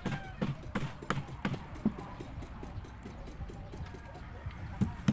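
Hammer blows on wooden column formwork as it is nailed together: a run of sharp, irregular knocks, closer together in the first two seconds and sparser after.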